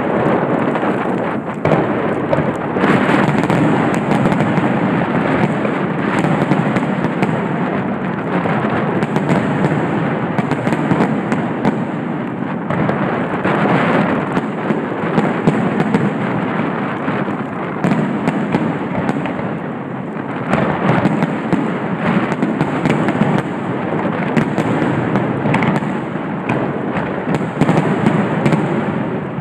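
Aerial firework shells bursting in a rapid, unbroken barrage, loud overlapping bangs and crackles running together with no pauses between them.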